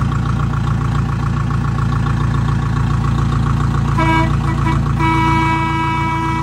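Tractor's diesel engine running steadily while driving, with a horn tooted in a few short blasts about four seconds in, then held for about a second and a half near the end.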